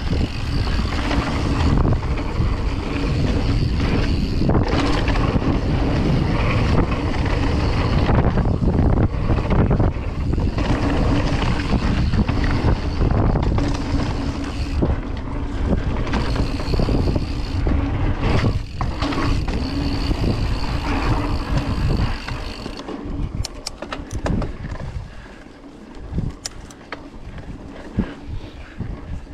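Mountain bike riding fast down a dirt forest trail: wind on the microphone and the rumble and rattle of tyres and frame over the ground. About 23 seconds in it goes much quieter as the bike slows, with a few sharp clicks and rattles.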